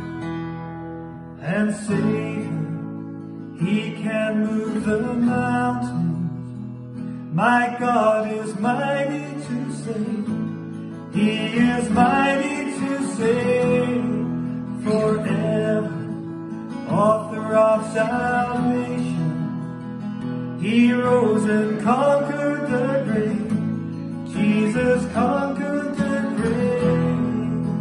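A man singing a worship song to his own strummed acoustic guitar, the voice coming in phrases over steady chords.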